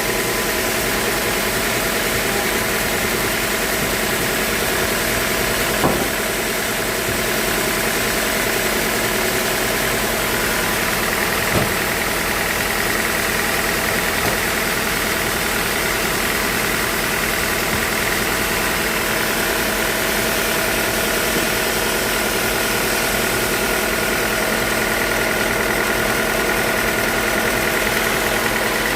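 Sawmill machinery running steadily with a constant mechanical hum and whine. Two short knocks come, about six seconds in and again about eleven seconds in.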